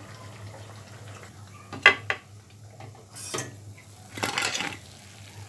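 Metal spoon clinking and scraping against a kadhai and plate as fried potato pakoras are lifted out of the oil: two sharp clinks about two seconds in, then two short scrapes.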